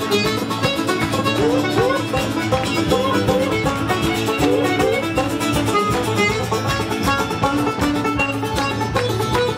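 Live Irish traditional band playing a fast reel, with tenor banjo picking the quick melody over strummed acoustic guitar and bodhrán.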